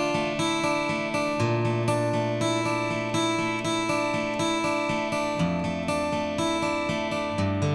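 Background music: strummed acoustic guitar, chords changing about every second or two.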